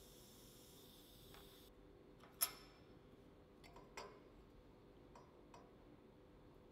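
Faint light metallic clicks and clinks as a small steel frame tab is handled against a steel welding table. The sharpest click comes about two and a half seconds in, a second about four seconds in, and a few softer ones follow. Before them, a faint hiss stops abruptly.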